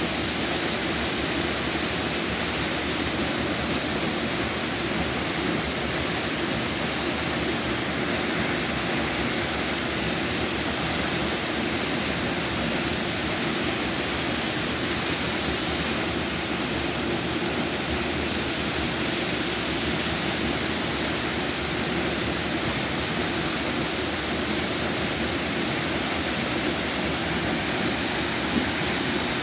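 Waterfall: falling water making a steady, even rushing noise that does not change.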